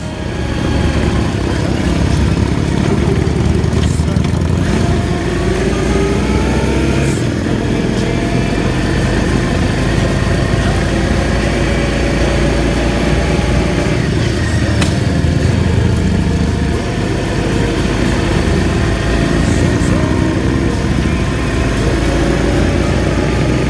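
Motorcycle engine running while riding, its pitch rising and falling with the throttle over a steady rush of wind and road noise.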